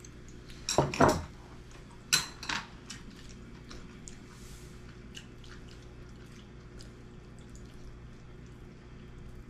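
Tableware clinking on a wooden dining table during a meal: a few sharp knocks of dishes in the first three seconds, the loudest about a second in, then faint light taps of a spoon and chopsticks against bowls.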